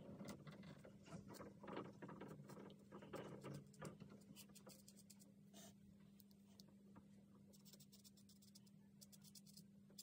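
Faint scratching of a fine liner pen nib on watercolour paper, drawn in many short quick strokes, over a faint steady low hum.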